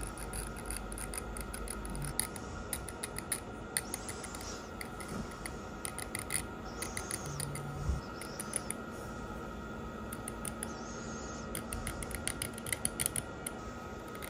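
Hobby knife blade scraping and scribing a cast resin model car body, a run of fine scratchy ticks that come in short clusters.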